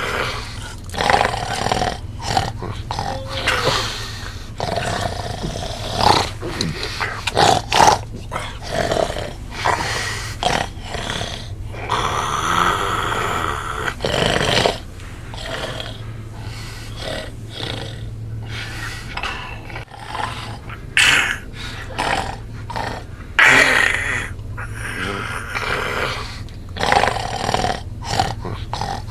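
A man snoring loudly in irregular, rasping breaths, some short and one drawn out, over a steady low hum.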